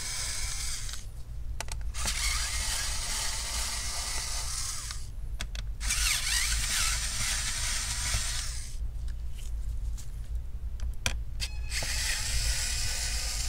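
Electric screwdriver backing out small laptop battery screws: several short runs of its motor whine, each one to three seconds, with brief pauses and clicks between screws.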